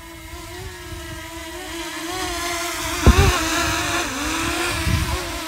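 DJI Mini 2 drone's propellers running with a steady, slightly wavering whine that grows louder over the first three seconds. Low rumbles throughout, with a brief thump about three seconds in.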